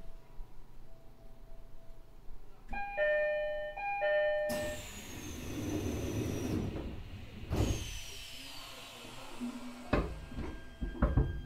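Two-note door chime of a JR East E129 series train sounding twice, followed by a louder rushing noise with faint falling high whistles and a few sharp knocks near the end.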